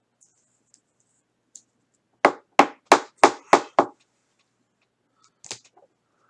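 Six sharp knocks in quick succession, about three a second, followed by one softer knock about two seconds later.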